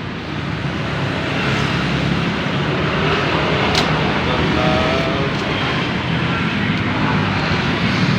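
Steady road traffic noise, with faint voices in the background.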